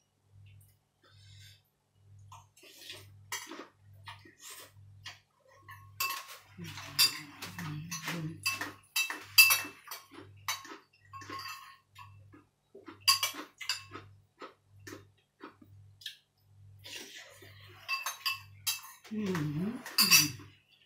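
Metal spoon clinking and scraping against a ceramic bowl while eating noodles with curry, in many short irregular clinks that grow busier after the first few seconds. Near the end a voice makes a short sliding sound.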